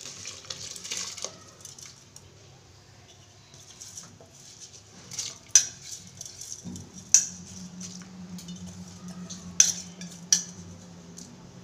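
Soaked rice poured from a steel bowl into a large aluminium pot of boiling water, a short hiss and splash at the start, followed by four sharp metal clinks of utensils against the pot. A steady low hum runs through the second half.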